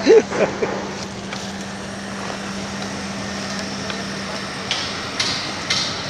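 A truck engine idles with a steady low hum. A person's voice is heard briefly at the start, and several sharp knocks come near the end.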